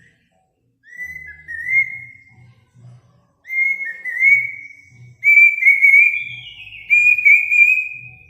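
Bird song: clear whistled notes that slide and waver, given in about three phrases, each longer and louder than the one before, with faint low pulsing underneath.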